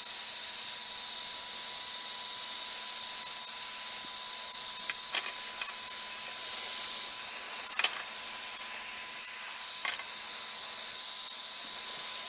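Handheld heat gun running: a steady hiss of blown air with a thin, steady whine underneath, held without a break, and a few light clicks over it.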